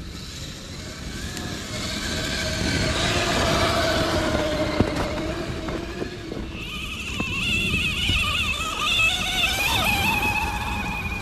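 Electric motors and geared drivetrains of RC scale crawler trucks whining as they climb through snow, the pitch rising and falling with the throttle. A lower whine fills the first half, a higher one takes over in the second half, and there is a single sharp tick about halfway through.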